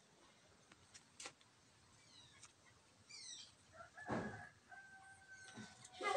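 Small birds chirping in short runs of quick, falling high notes. About four seconds in, a louder animal call comes in with two held tones and lasts about a second and a half.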